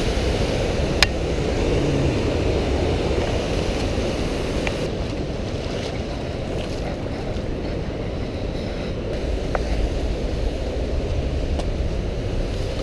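Steady rush of a fast-flowing creek, with low wind rumble on the microphone and a sharp click about a second in.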